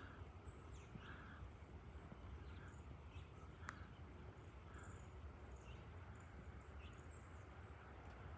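Quiet outdoor ambience: birds chirping, with a short bird call repeating about once a second over a faint low rumble, and a single sharp click about three and a half seconds in.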